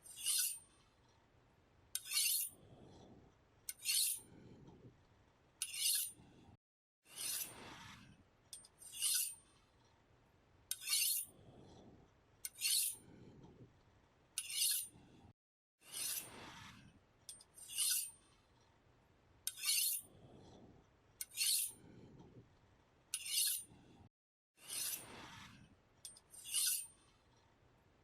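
A knife being sharpened: repeated scraping strokes of the blade, about one every second or two, with a longer drawn stroke roughly every eight seconds in a repeating pattern.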